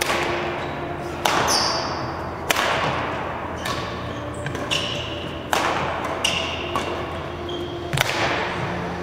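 Badminton rackets hitting a shuttlecock back and forth in a rally: a sharp crack with a brief ringing ping about once a second, each echoing in the hall.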